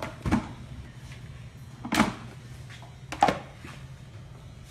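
Three hard knocks of kitchen things on a countertop, spread over about three seconds, over a low steady hum.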